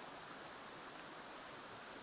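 Faint, steady rushing of a flowing stream.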